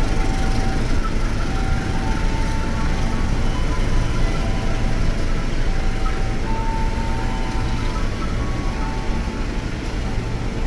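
Passenger coaches of a departing local train rolling slowly past along the platform, giving a steady low rumble from wheels and running gear. Short high tones come and go over it.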